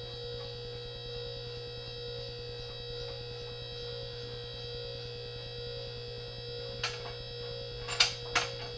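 QuickJack portable car lift's electric hydraulic pump running with a steady hum as it raises the empty lift frames, with a few sharp clicks near the end. The frames rise notchily, which the owner takes as a sign of air in the hydraulic system.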